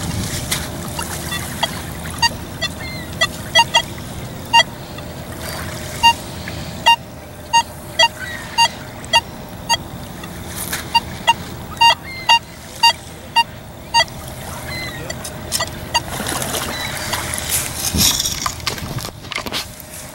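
Nokta Makro Legend metal detector giving short, sharp beeps, scattered at first and then coming in a quick irregular run through the middle, as its coil is swept through shallow saltwater. Water sloshes and trickles around wading boots underneath.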